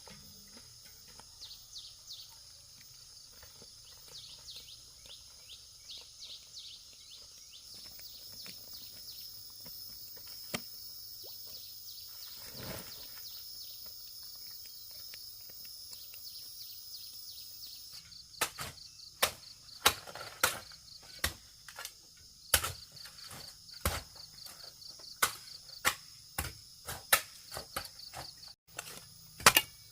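Insects trilling steadily with short repeated high chirps. About eighteen seconds in, a hand tool starts striking wood in sharp, loud blows, roughly one a second.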